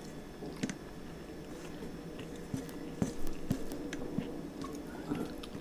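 Eating rice and curry by hand from a steel plate: fingers squishing and mixing the food, chewing, and a few short light clicks.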